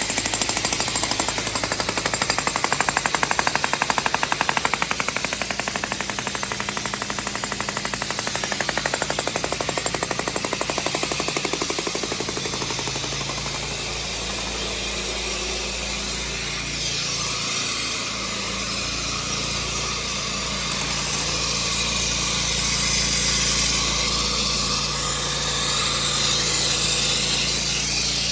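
Jackhammer breaking up concrete, rapid steady hammering for about the first half. After that the hammering gives way to a smoother, steady hissing noise.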